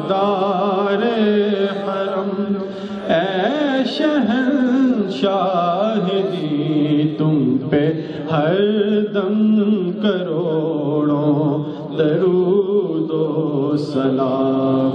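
A man's voice singing Urdu devotional verse unaccompanied into a microphone, in long, slowly wavering held notes.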